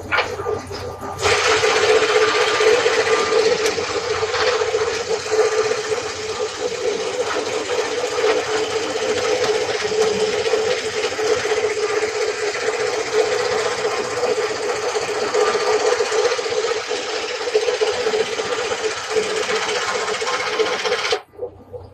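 Table saw running with a steady, loud mechanical whirr that starts abruptly about a second in and cuts off abruptly near the end.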